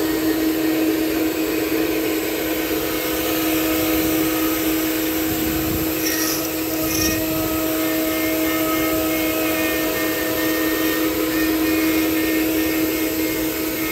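Spindle of a 4-axis CNC wood router running at a steady pitch, its long thin bit cutting into a wooden block, a constant machine tone over the hiss of the cut.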